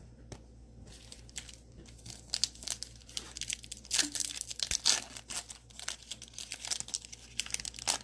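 Foil trading-card pack wrapper being torn open and crinkled in the hands: a fast run of crackles that starts about two seconds in.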